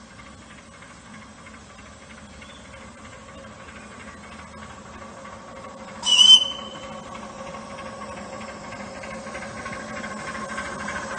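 Miniature ride-on steam locomotive approaching, its running sound growing steadily louder, with one short, high-pitched whistle blast about six seconds in.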